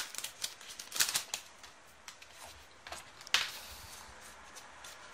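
Pokémon trading cards sliding and flicking against each other as they are pulled from a torn foil booster pack and fanned out in the hand: faint scattered rustles and light clicks, busiest in the first second or so, with the sharpest click a little past three seconds in.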